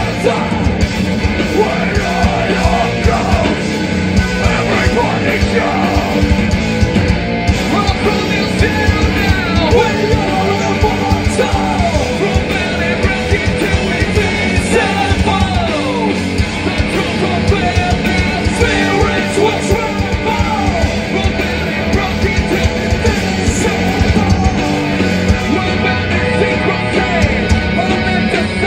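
A hard rock / post-hardcore band playing live and loud: electric guitars, bass and drums, with a vocalist yelling and singing over them.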